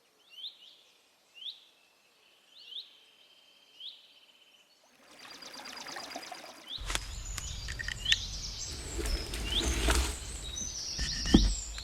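Birds calling: one bird repeats a short rising chirp about once a second over near-quiet. About halfway in a low rumble and hiss come up, more birds join with chirps and whistles, and there is a thump near the end.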